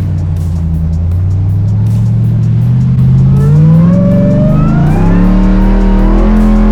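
Off-road truck engine running under load, then revving up about three seconds in, its pitch rising and holding high.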